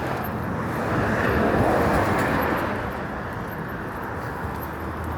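Road traffic: a vehicle passing, louder about one to two and a half seconds in and then fading, over a steady low hum.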